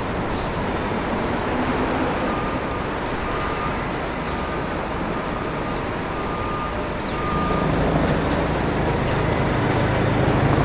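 A New York City subway train approaching along an elevated steel structure. A steady rumble of wheels and track grows louder from about seven seconds in as the train draws near.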